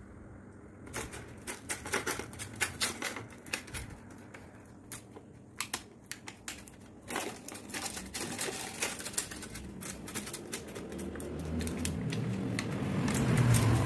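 A dog eating noodles from an aluminium foil tray: quick, irregular clicks and crinkles of its mouth working at the food and the foil tray, starting about a second in. A low hum swells near the end.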